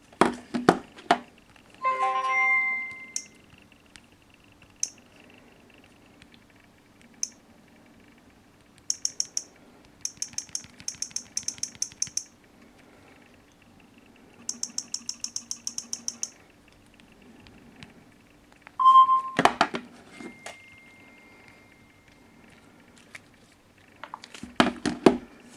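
Samsung Galaxy smartphones sounding alarm and alert tones: a short chime about two seconds in, then two runs of rapid high-pitched beeps of about three and two seconds each. Knocks and clicks of the phones being handled come at the start, near the end, and with a brief tone about three-quarters of the way through.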